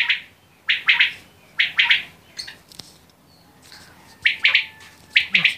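Caged common quail calling: short phrases of two or three quick, sharp chirps, repeated about five times, with a pause of a second or so in the middle.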